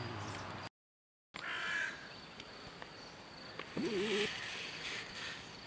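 Quiet outdoor village ambience with a bird giving a short harsh call just after a brief dropout near the start, and a short low wavering call about four seconds in.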